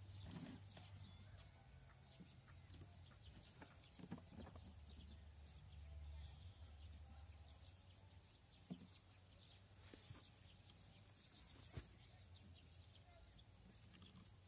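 Near silence with a faint low rumble, broken by a few soft knocks and rustles from hands working hay at the base of a wooden hay press.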